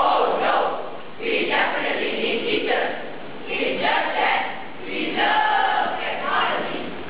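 A choral speaking team of teenage boys reciting in unison, in about five loud chanted phrases with short breaks between them.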